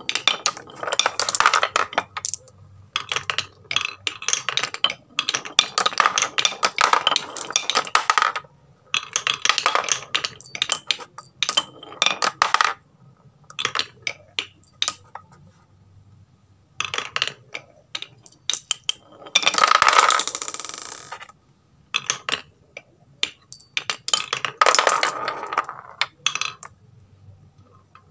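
Glass marbles rolling and clattering down a wooden HABA marble run in repeated bursts of quick clicks against the wooden blocks. A small metal bell rings as marbles strike it, loudest about twenty seconds in.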